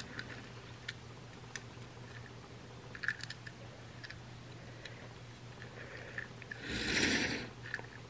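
Faint clicks and light taps of fingers handling a small die-cast metal toy train engine, with a louder rustling noise lasting under a second about seven seconds in, over a low steady hum.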